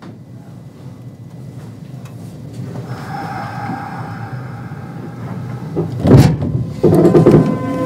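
Inside a Kintetsu 5200 series train standing at a station: the passenger doors slide shut with a loud thud about six seconds in. Near the end the Mitsubishi GTO-VVVF traction inverter starts up with a steady whine as the train prepares to pull away.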